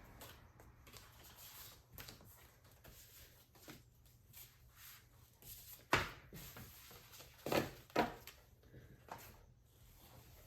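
Posters and album parts being handled: soft paper rustles and light taps, with a sharper knock about six seconds in and two more a couple of seconds later.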